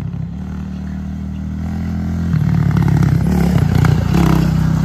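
Honda TRX450R quad's single-cylinder four-stroke engine running at low revs. About two seconds in it jumps louder and close by, with the revs rising and falling under light throttle.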